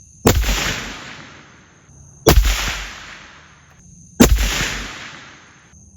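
A .308 bolt-action rifle fired through a Dead Air Nomad suppressor: three sharp shots about two seconds apart, each trailing off in a rolling echo over a second or so, with a fourth shot right at the end.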